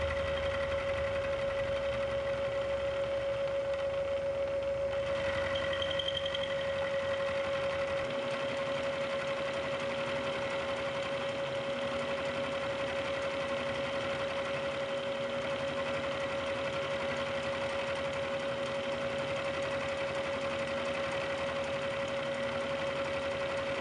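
Milling machine with a 5/8 inch four-flute high-speed steel end mill plunge-cutting a steel block: a steady machine tone with cutting noise over it. A low rumble under it drops away about eight seconds in.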